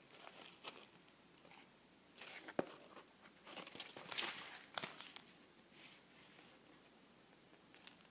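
Pieces of a broken cardboard banjo handled close to the microphone: faint crinkling and rustling of cardboard and tape, with sharp clicks about two and a half and five seconds in.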